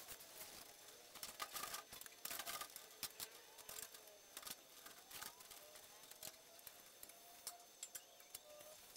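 Faint, irregular ticks and taps of hand work on a welded steel-tube frame, with two short denser noisy spells in the first few seconds.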